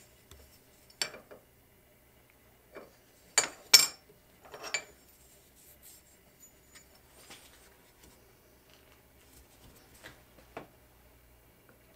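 Pieces of cut steel clinking against a steel bench vise and adjustable wrenches as they are handled: a handful of sharp metallic clinks, the loudest pair about three and a half seconds in, and one more near the end.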